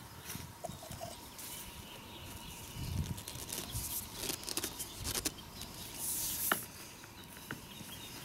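Handling noise from 1-inch Schedule 40 PVC pipe being pushed and twisted into a coupler over dirt: scattered scrapes, rustles and small knocks, with a sharper click about six and a half seconds in.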